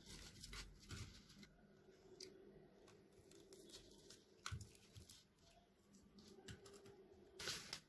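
Near silence, with a few faint, scattered clicks and rustles of wires being handled and pushed into a controller's plastic screw-terminal block.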